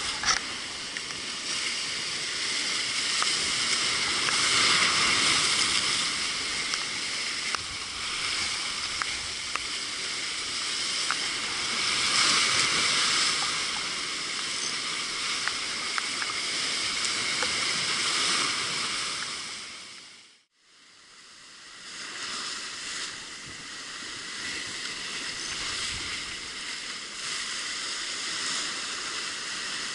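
Sea surf surging and breaking over rocks, a steady wash that swells and eases every several seconds, heard through a waterproof camera housing. The sound cuts out briefly about two-thirds of the way through.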